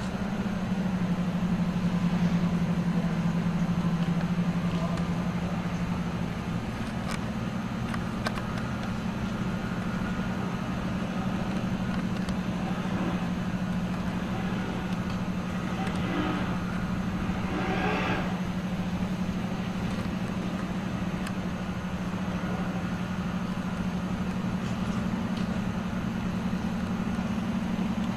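A motor running steadily with a low drone.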